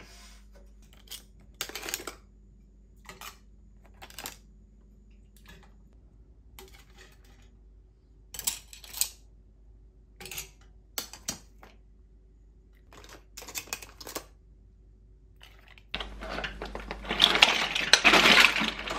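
Metal tongs clinking against a stainless steel pot and shellfish, a series of separate light clinks. Near the end a container of clams and mussels is tipped into the pot, a loud dense clatter of shells against the steel.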